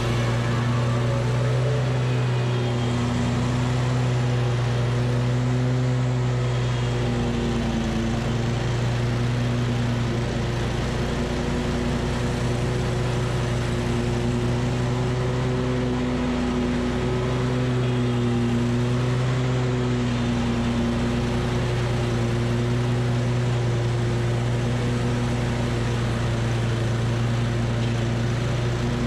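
Hustler Super S stand-on mower's engine running steadily at full throttle while mowing, its pitch dipping slightly a couple of times.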